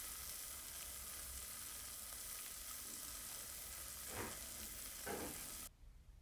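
Food sizzling in a frying pan: a steady, hissing fry, with two brief louder sounds about four and five seconds in. It cuts off suddenly near the end.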